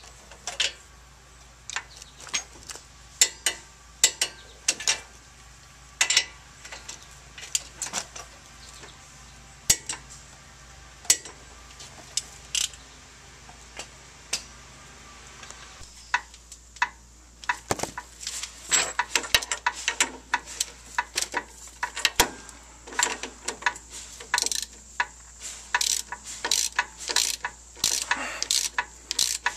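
Hand ratchet clicking as a front-suspension nut is turned. The clicks come singly, about one a second, at first, then in quick dense runs through the second half.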